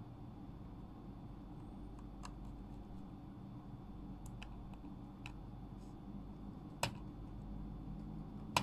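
A few short sharp clicks, faint at first, with two louder ones near the end, over a steady low hum.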